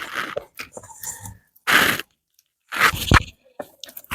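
Close-miked eating sounds: chewing and wet mouth noises while eating rice fufu with okra soup. They come in a few short bursts with small clicks between.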